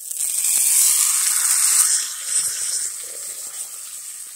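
Steak searing as it is laid into a hot cast iron skillet: a loud sizzle that starts suddenly as the meat goes down and eases off after about two seconds.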